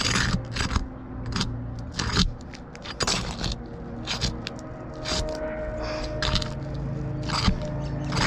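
A pry bar working under asphalt roof shingles: irregular scraping, crackling and clicking as the bar is pushed in to break the shingle's adhesive seal. A steady low hum runs underneath.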